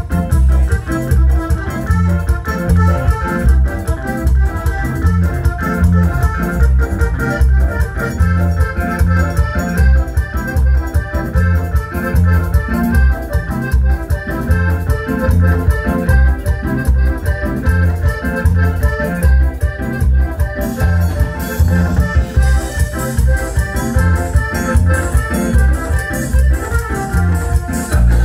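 Cumbia dance music led by an electronic keyboard in an organ-like voice over a strong pulsing bass beat, played loud over loudspeakers. A hissing rattle joins near the end.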